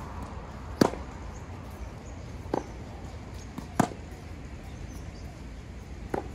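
Tennis ball struck back and forth by rackets in a rally: four sharp hits, the loud ones from the near player alternating with fainter ones from the far end of the court.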